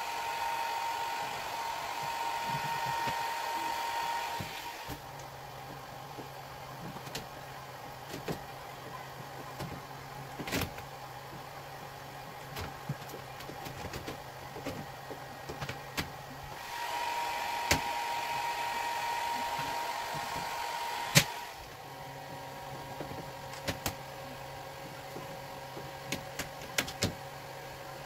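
A handheld hair dryer blows with a steady whine, heating vinyl wrap on a car hood. It runs for about the first five seconds, comes on again for about four seconds later, and cuts off with a click. In between, a low steady hum continues under small clicks and scrapes from a plastic squeegee smoothing the vinyl.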